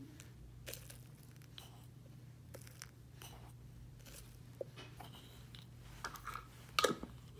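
Faint taps and rustles of a container of love powder being handled and shaken out into a hollowed pumpkin, with a couple of sharper clicks near the end, over a low steady hum.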